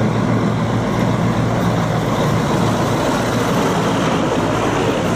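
Mack semi-truck tractor driving, its diesel engine running steadily with a low hum under broad road noise.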